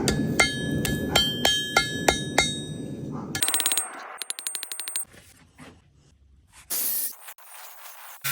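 Metal struck repeatedly: about three sharp, ringing clinks a second for the first three seconds, then a fast buzzing rattle, and near the end a short burst of hiss.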